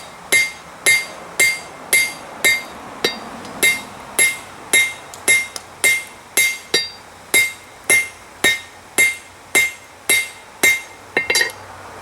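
Blacksmith's hammer striking hot steel on an anvil, drawing out a bar for a fire steel striker: a steady run of ringing blows about two a second, with a quick flurry of lighter taps near the end.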